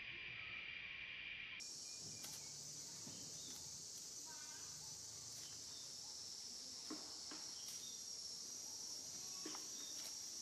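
Steady high-pitched insect droning that jumps abruptly to a higher pitch about a second and a half in, with a few faint clicks.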